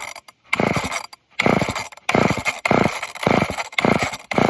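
An old two-stroke chainsaw's recoil starter pulled over and over, about six quick pulls in a row, each a short whir of the cord as the engine turns over without catching. The owner suspects it is struggling to draw fuel because of a dirty fuel filter.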